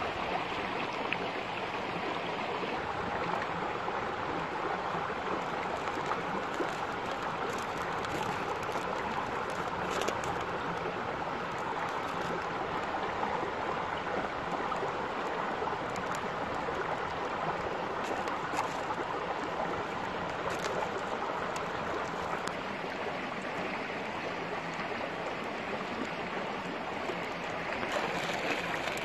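Shallow rocky stream flowing and babbling steadily, with a few faint clicks scattered through it.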